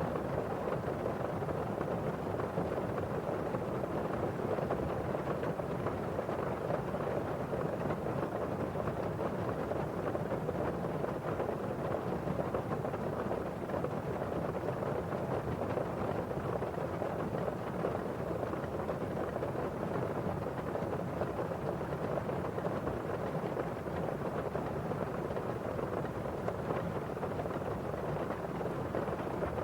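Steady rain on window glass, mixed with the rustle of rain falling outside, as one even, constant wash of sound.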